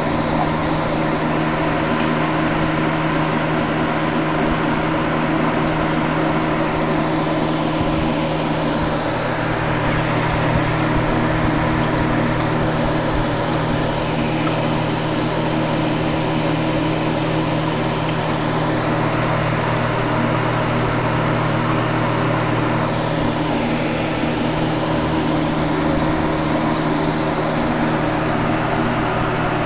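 Aquarium filter running: a steady electric hum over an even hiss of moving water.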